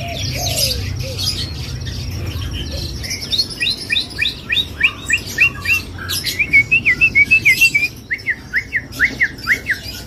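Caged songbird singing non-stop. A busy twittering start gives way, about three seconds in, to a long run of loud, repeated short sliding whistled notes at about three a second, with other birds chirping behind.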